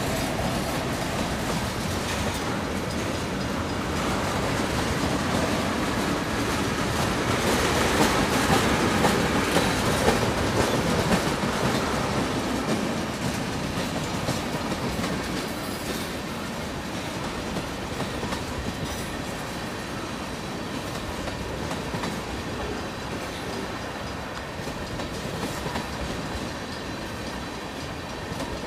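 Union Pacific manifest freight train's cars rolling past, a continuous rumble and clatter of steel wheels on rail. It gets louder about eight to twelve seconds in, then slowly eases off.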